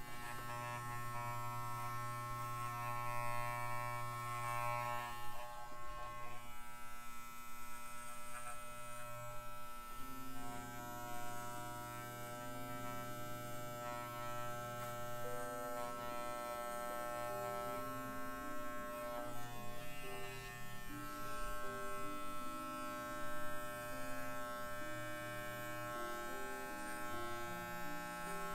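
Corded electric dog grooming clippers running with a steady buzz while trimming the fur on a miniature schnauzer's head.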